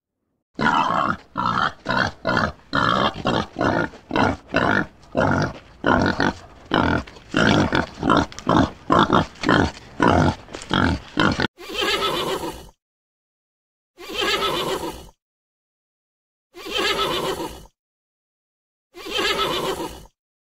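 Wild boar grunting, a quick run of short grunts at about three a second. About halfway through it gives way to a horse neighing: four wavering calls of about a second each, a couple of seconds apart.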